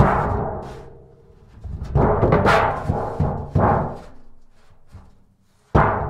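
Empty steel drum banged and knocked, each hit a hollow, ringing boom that dies away in heavy reverberation. One hit rings out at the start, a run of bangs and scrapes follows about two to four seconds in, and one more sharp bang comes near the end.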